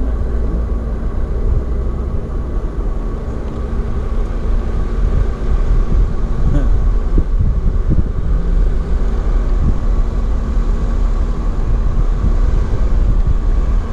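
Jeep Wrangler JL Rubicon engine running under load with a deep, steady rumble while driving in sand, getting louder about five seconds in.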